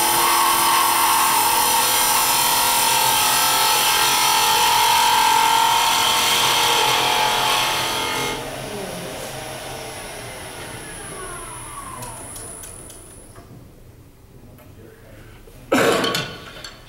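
Wood lathe turning a small spindle while a hand-held turning tool cuts into the wood: a loud, steady scraping cut with a whine. About eight seconds in the cut stops and the sound drops to a fainter hum that fades away. A short, loud knock comes near the end.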